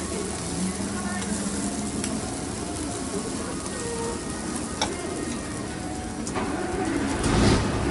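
Mini pancakes (poffertjes) sizzling steadily in a dimpled griddle pan as they are turned with a thin skewer. A few light clicks about five seconds in, and a louder burst of noise near the end.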